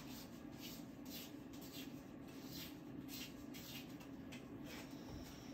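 Large handheld pencil sharpener shaving a thick black Woody pencil: a faint run of short, rasping scrapes, about two or three a second, as the pencil is turned in the blade.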